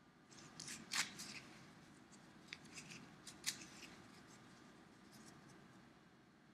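Paper towel being handled and crumpled, giving faint scratchy crinkles and rustles. The loudest crackle comes about a second in, with a few more around three seconds, then it goes quiet.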